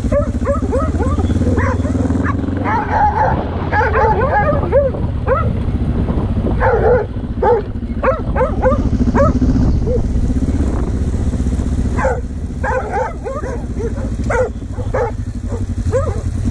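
A dog barking and yapping over and over in quick clusters, over a motorcycle engine running steadily.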